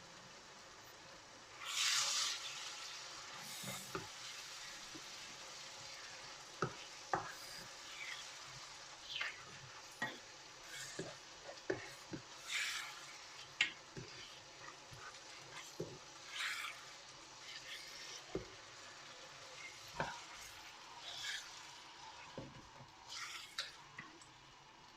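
Yoghurt-based curry paste frying in a pan while a spoon stirs it: a steady low sizzle, a louder hiss about two seconds in, and irregular clicks and knocks of the spoon against the pan.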